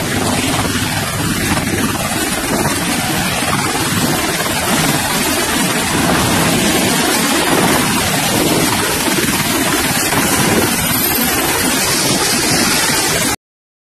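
MH-60R Seahawk helicopter's rotor and turbines running as it hovers over a ship's flight deck and sets down, a steady rushing noise mixed with wind on the microphone. It cuts off suddenly near the end.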